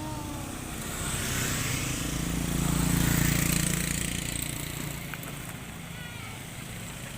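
A motor vehicle's engine passing by, growing louder for a couple of seconds and then fading away.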